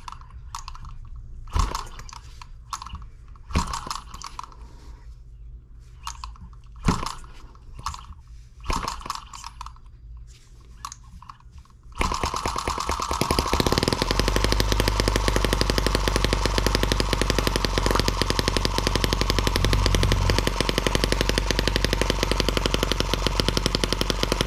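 Miniature brass M17B model engine being restarted: scattered clicks and knocks as its flywheels are spun by hand. About halfway through it suddenly catches and runs steadily with a rapid, loud train of firing pops, a noisy little engine.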